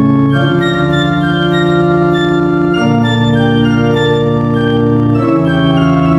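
Background music: sustained organ-like keyboard chords, changing chord about every two and a half seconds.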